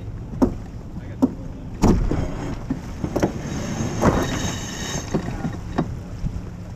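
Wind buffeting the microphone and water rushing past the hull of a racing sailboat under way, with several sharp knocks from deck gear.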